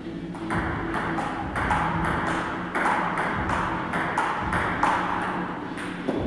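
Table tennis rally: the plastic ball clicking off the rubber-faced paddles and bouncing on the table, a quick, even run of hits about two to three a second.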